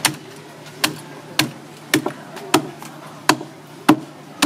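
Knife chopping through a large triggerfish's head and bones onto a wooden cutting board: sharp, evenly spaced chops, about eight of them, roughly one every two-thirds of a second.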